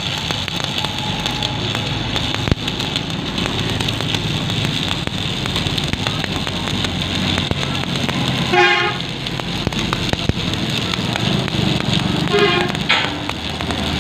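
Stick (arc) welding on a steel frame: the welding arc crackles and sizzles steadily. Traffic sounds underneath, and a vehicle horn gives two short, warbling toots about eight and a half and twelve and a half seconds in.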